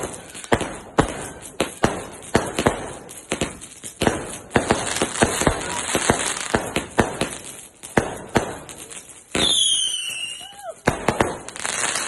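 Fireworks going off in rapid, irregular bangs and crackles, several a second. About nine seconds in, a loud firework gives a falling whistle lasting about a second.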